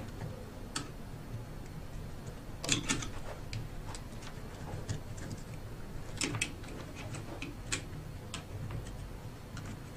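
Irregular small clicks and rattles of hands fitting plastic wire connectors and cables onto a hexapod robot's controller board, with a quick cluster of clicks about three seconds in. A faint steady low hum runs underneath.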